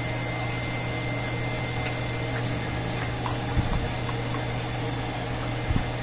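Steady machine hum with a constant pitch, with a faint thin whine that stops about two seconds in. A few soft knocks come in the second half.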